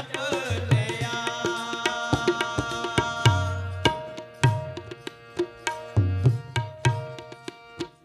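Instrumental passage of Sikh kirtan: tabla playing a rhythm with deep, resonant bass strokes under sustained harmonium notes. The upper melody thins out about halfway through, leaving held notes and the drum pattern.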